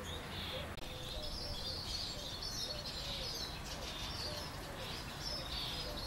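Birds chirping faintly and repeatedly in high notes at a nest in a wall vent, with a lower short call repeated about twice a second underneath.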